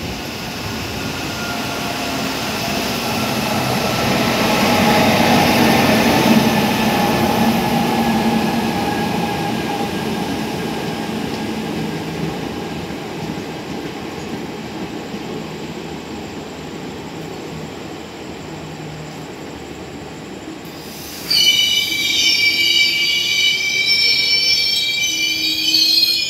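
Passenger train 53064 running through the station: the rumble of the train swells to its loudest about six seconds in, then eases as the coaches roll past. About 21 seconds in, a loud, high metal-on-metal squeal from the running gear sets in, with several steady pitches at once.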